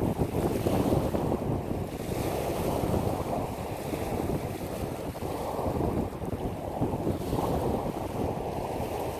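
Small waves breaking and washing onto a pebble beach, swelling and easing every few seconds, with wind rumbling on the microphone.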